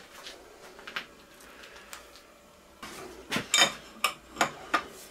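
Steel collet spanner clinking against the collet nut of a collet block as the nut is fitted and tightened, metal on metal. A few faint handling taps come first, then a quick run of sharp clinks with a brief ring, from about three to five seconds in.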